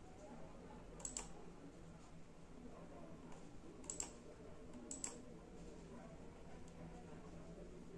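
Sharp computer clicks as the laptop is operated: two about a second in, two near four seconds and one at about five seconds, over a faint steady hum.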